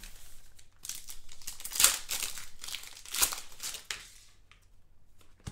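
Foil trading-card pack wrapper crinkling and tearing as it is handled, in a run of rustling bursts from about a second in to nearly four seconds, loudest about two and three seconds in; then only faint handling noise.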